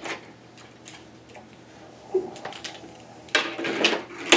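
Small plastic K'nex pieces clicking as they are handled and fitted together: a few scattered clicks, then a quicker run of louder ones in the last second or so, the loudest near the end.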